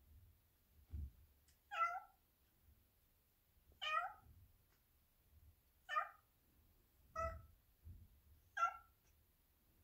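A cat meowing five times, short calls spaced about one and a half to two seconds apart.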